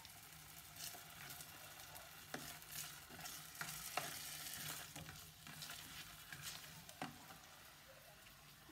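Potato chunks frying in oil in a nonstick pan with a faint steady sizzle, turned with a spatula that scrapes and knocks against the pan several times.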